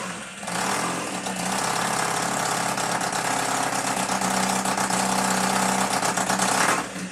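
1981 Honda CM400's parallel-twin engine running through an Akrapovič MotoGP exhaust on its first start after the custom build, settling into a steady idle about half a second in.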